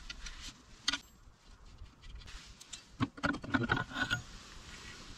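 Metal clinks and knocks as the spring holding a Suzuki K90's exhaust is unhooked and the muffler is worked loose: a couple of single clicks, then a quick cluster of rattling knocks with a short metallic ring about three seconds in.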